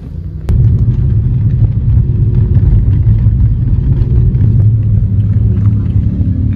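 Loud, steady low rumble of a car on the move, heard from inside the cabin. It jumps sharply louder about half a second in and then holds.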